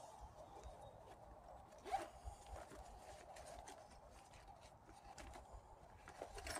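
Faint handling sounds from a metal multitool being opened out: light clicks and rustling, with one sharper click about two seconds in, over a steady faint hum.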